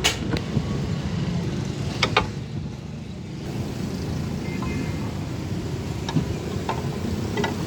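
Steady low rumble of road traffic, with a few sharp clicks and clinks of tools on engine parts: one at the start, two about two seconds in, and several lighter ones near the end.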